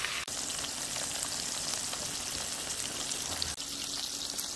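Slices of pork belly sizzling on a griddle pan: a steady frying hiss with small crackles of fat.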